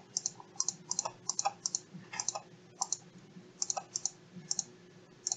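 Computer mouse clicking repeatedly at an uneven pace, about a dozen short, faint clicks, as faces are selected one after another.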